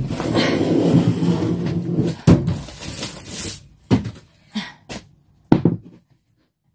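Pine battens of a cupboard frame being handled and turned over: a couple of seconds of rustling and scraping, then a sharp knock and several more scattered wooden knocks.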